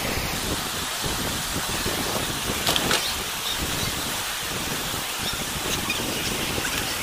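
Floodwater rushing down a street in a fast torrent: a steady, even rush of water noise.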